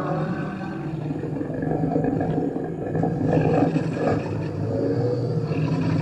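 Home-made Tyrannosaurus rex roar sound effect: a long, low, continuous roar built from a layered alligator bellow and air blown through a straw into water, swelling a little about halfway through.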